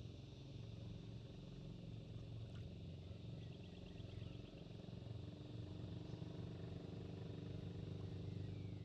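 Faint, steady hum of an engine running at idle, with a faint high chirring and a short run of rapid ticks about three and a half seconds in.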